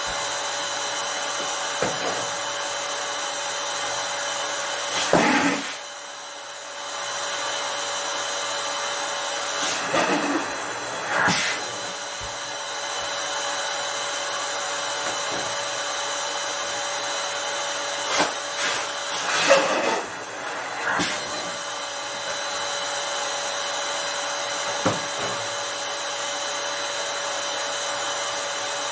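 Electric balloon inflator blowing steadily into latex balloons, its motor cutting out for about a second and a half near six seconds in. A few short, louder rubbing and squeaking sounds of the balloon rubber being handled on the nozzle.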